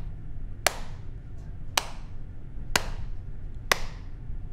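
A single person's slow hand clapping, four sharp claps about a second apart, a sarcastic slow clap.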